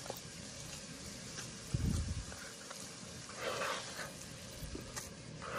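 A hand squishing and folding a wet meatloaf mix of ground beef, pork and veal with bread and egg, quiet and irregular, with a dull thump about two seconds in.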